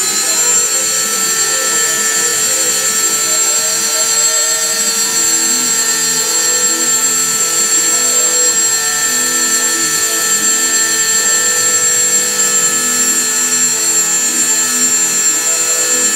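Handheld high-speed rotary tool running steadily with a high whine, its abrasive stone grinding against the motorcycle clutch basket's fingers. It is polishing off slight wear where the fiber plates ride, so the plates slide freely and don't catch.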